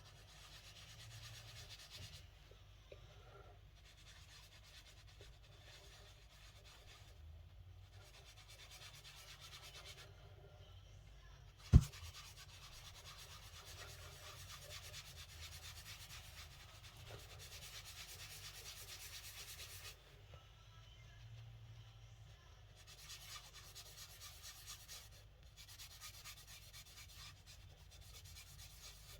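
Faint rubbing of a tissue carrying aluminium polish over a painted car door handle in circular motions, coming in long stretches with brief pauses. A single sharp click about twelve seconds in.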